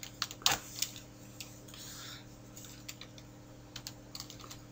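Computer keyboard typing: irregular single keystrokes as a file name is entered, the loudest about half a second in.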